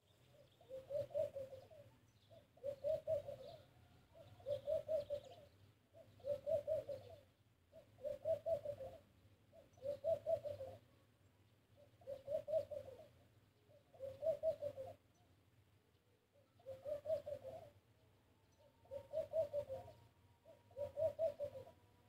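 A dove cooing: the same short phrase of several quick notes repeated about every two seconds, with a slightly longer pause about two-thirds of the way through.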